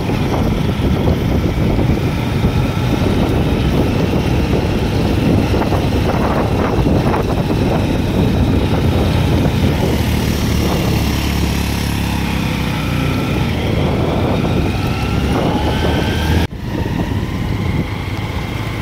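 Wind buffeting the microphone over the running engine of a motorbike being ridden along, a steady rush with faint wavering engine tones. The sound drops out for an instant near the end.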